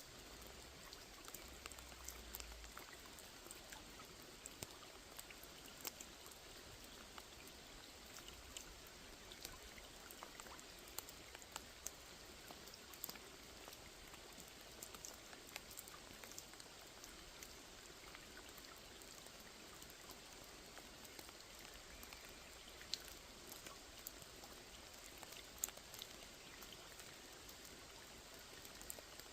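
Steady, quiet rain falling on a small lake, an even hiss of rainfall with many separate drops ticking sharply here and there.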